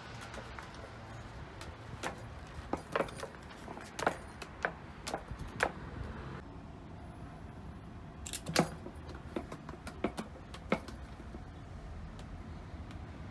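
Cat clawing a sisal-rope scratching post: two runs of short, irregular scratching strokes with a pause between them.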